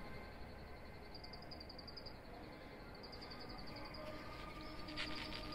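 Insects chirping in repeated high, rapidly pulsing trills, each about a second long, over a steady outdoor background hiss. About four seconds in a faint steady hum of several tones joins, and a short brighter sound comes near the end.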